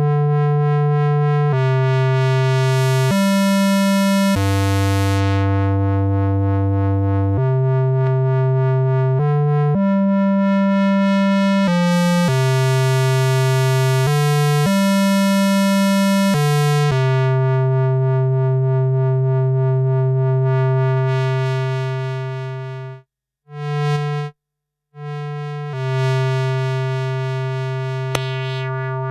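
Yamaha CS01 analog monosynth playing a slow line of single held notes in a buzzy tone rich in overtones, the filter opening brighter on some notes. Near the end a long note fades away and the sound drops out twice briefly before another long note sounds.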